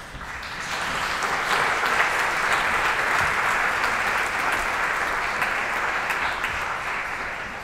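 Audience applause: dense clapping that swells over the first second, holds steady, then begins to taper off near the end.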